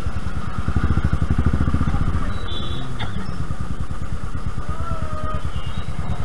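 Motorcycle engine running at low speed, a steady low pulsing exhaust beat, a little louder in the first two seconds.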